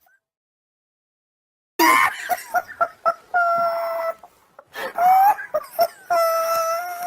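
Silence for nearly two seconds, then a person's loud, exaggerated laughing cuts in suddenly: choppy cackling bursts broken by long, high-pitched held cries.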